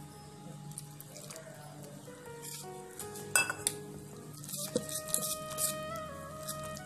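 A wire whisk stirring flour, curd and water into batter in a steel bowl, clinking and scraping against the metal, with sharp clicks a little past three seconds and a cluster around five seconds. Soft background music plays underneath.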